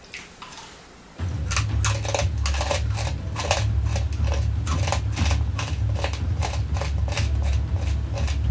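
Close-up crunching of a mouthful of wasabi-coated peanuts being chewed, starting about a second in: irregular sharp crunches, about two or three a second, over a steady low hum.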